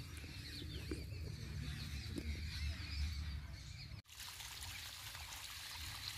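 Irrigation water trickling along a furrow between garlic rows, with a few faint bird chirps. About four seconds in the sound drops out for a moment, then a steady hiss goes on.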